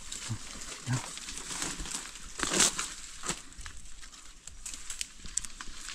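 Irregular rustling and crackling of dry leaves and forest litter being handled, with scattered sharp clicks and one louder rustle about two and a half seconds in.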